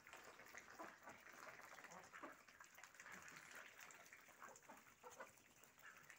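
Faint clucking from a flock of backyard chickens pecking at scattered grain, in short, irregular calls.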